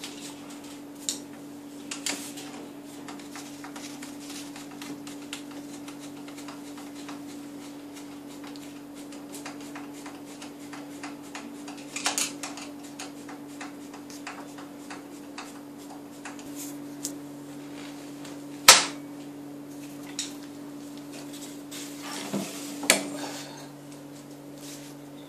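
Scattered metallic clicks and clinks of a screwdriver and screws being handled against a cradle's metal frame tubes and plastic fittings, with a single sharp knock about two-thirds of the way through, over a steady low hum.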